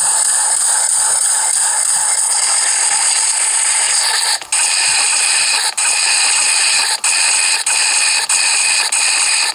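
Harsh, loud noisy sound effects, mostly high hiss with a few steady high tones. About halfway through they start being cut off abruptly, roughly once a second.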